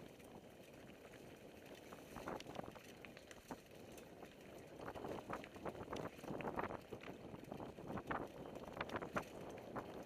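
Mountain bike rolling over a rocky dirt trail: tyres crunching and the bike rattling and knocking over rocks, with wind on the microphone. The knocks come thick and fast from about halfway through.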